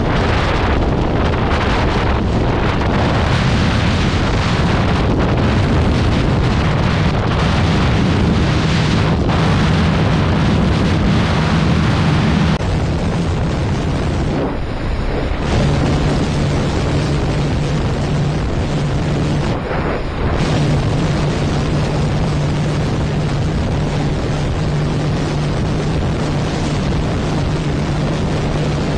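Motorcycle engine running at steady high revs through a top-speed run, with heavy wind rushing over the microphone. The engine note dips briefly twice in the second half.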